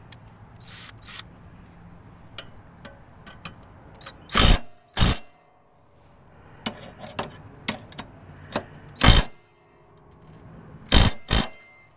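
Battery-powered impact wrench hammering in five short bursts, the first about half a second long and the rest briefer, starting about four seconds in, as it drives a mower blade bolt tight on a zero-turn's cutting deck.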